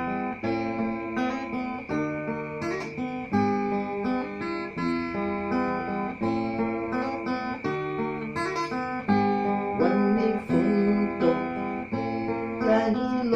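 Inexpensive acoustic guitar playing a picked and strummed chord intro, recorded on a mobile phone. A steady high-pitched hum sits underneath throughout.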